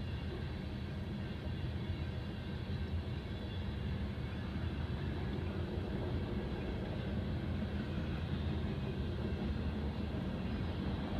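Freight train's hopper and tank cars rolling past a grade crossing: a steady low rumble of steel wheels on the rails, heard muffled from inside a car.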